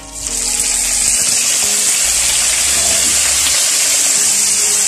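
Squid poured into hot cooking oil with browned garlic in a wok, bursting into a loud, steady sizzle that starts suddenly as the squid goes in.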